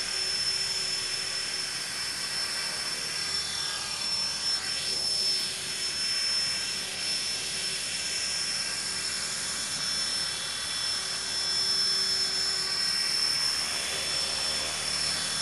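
E-flite Blade 400 electric RC helicopter hovering: the high steady whine of its electric motor and gears over the whoosh of the spinning rotor. The tone swishes and shifts for a couple of seconds about four seconds in as the helicopter moves about.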